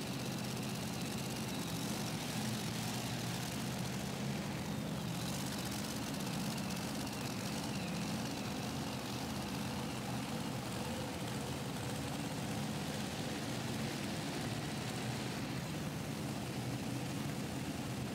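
Supercharged engine of a 2006 Dodge Dakota pulling truck running under full load as it drags the pulling sled down the dirt track, a steady drone that holds an even pitch.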